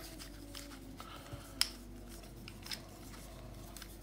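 Plastic pyramid twisty puzzle, a LimCube Discrete Pyraminx, being turned in the hands: faint clicking and rubbing of its pieces, with one sharper click about a second and a half in.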